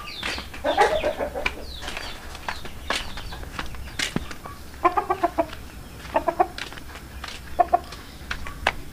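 Chicken clucking: short runs of clucks about five seconds in, again a second later, and near the end, with scattered sharp clicks.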